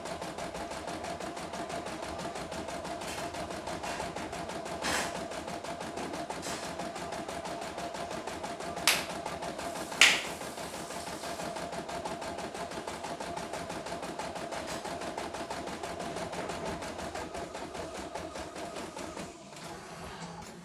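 CNY E960 computerised embroidery machine stitching a design, its needle running in a rapid, steady clatter. Two sharp clacks come about a second apart near the middle, and the stitching stops just before the end.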